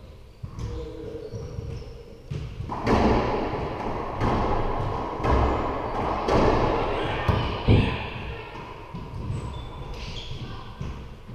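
Racquetball rally: the ball hits the racquets, walls and floor of the enclosed court in a string of sharp hits, each one ringing on in the court's echo. The hits come thickest from about three to eight seconds in, then stop.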